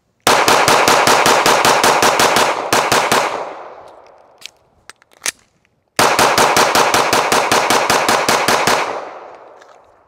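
Two fast strings of 9mm pistol fire from a Sig P320 XCompact shooting 147-grain Winchester Ranger, each string emptying a 15-round magazine, with a pause and a few faint clicks between them. Both strings run through without a stoppage, after earlier malfunctions that the shooter blames on old ammunition.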